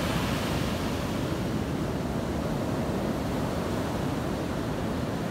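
Steady rush of ocean surf breaking on a beach, with wind buffeting the microphone.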